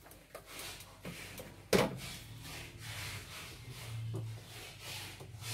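Rubbing and handling noise as parts are moved about on a wooden workbench, with one sharp knock a little under two seconds in.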